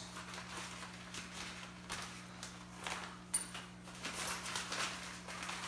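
Soft rustling and a few light taps as a fabric tripod carrying bag and its strap are handled, over a steady low hum.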